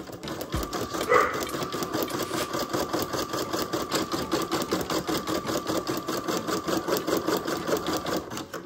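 Brother PE770 embroidery machine sewing a placement stitch through tear-away stabilizer: a rapid, even clatter of the needle with a steady whine from the motor over it, stopping just before the end.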